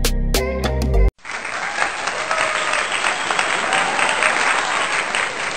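Background music that cuts off abruptly about a second in, followed at once by a crowd applauding steadily.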